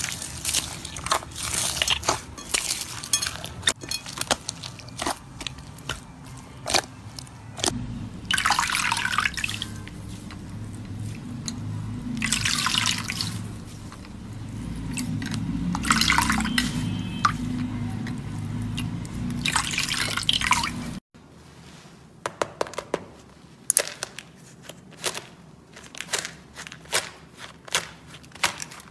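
Hands working slime in three clips: first rapid crackling and popping of foam beads in a blue floam slime, then wet squishing and sloshing of a clear slime pressed in a tray. After a sudden cut about two-thirds through come scattered sharp crackles as a textured crunchy slime is pressed.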